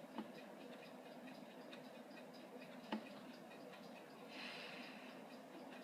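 Faint, steady ticking of clocks, a few ticks a second, with a sharp click about three seconds in and a short hiss near the end.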